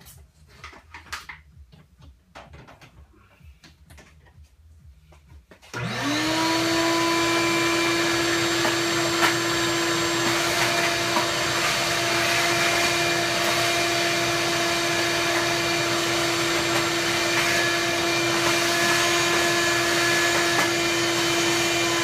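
Vacuum cleaner switched on about six seconds in, spinning up quickly to a steady whine with a rushing of air, cleaning dust out of a filthy computer case. Before it starts there are only faint handling clicks.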